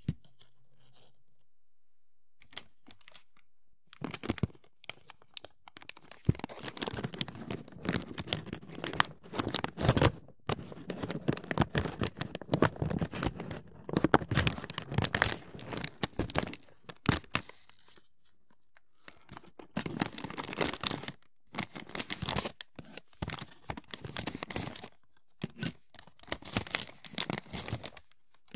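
Scratchy rustling, scraping and small clicks from hands working plastic miniature parts, in bursts with short pauses.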